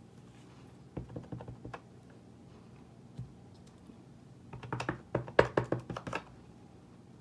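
A clear acrylic stamp block tapped repeatedly onto an ink pad in its plastic case: a few light clicks about a second in, then a quick run of sharp clicking taps from about four and a half seconds. The pad is running dry and needs re-inking.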